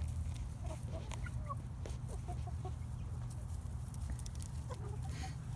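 Young Buff and Lavender Orpington chickens, still at the age of peeping like chicks, making many short soft chirps and clucks as they forage.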